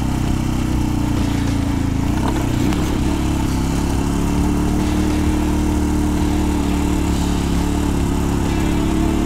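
Motorcycle engine running steadily under way, with wind and road noise; its pitch lifts slightly a few seconds in.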